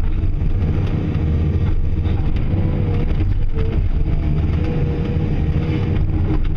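Caterpillar 336E excavator's diesel engine running steadily under load, with a whine from the hydraulics that wavers and bends in pitch as the machine works, heard from inside the cab.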